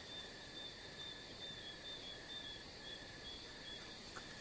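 Faint night insects chirping: a cricket-like chirp repeating about three times a second over a thin steady high trill.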